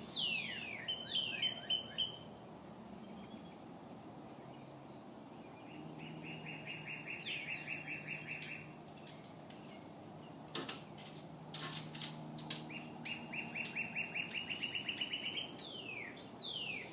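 Two northern cardinals singing back and forth: phrases of steep down-slurred whistles and fast runs of repeated notes, several seconds apart. A few faint clicks come near the middle.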